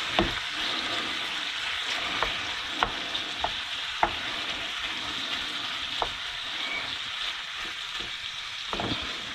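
Bacon and chopped onion sizzling steadily in a frying pan of butter and oil, with scattered sharp ticks through it. They are being heated gently to sweat out their juices rather than fried.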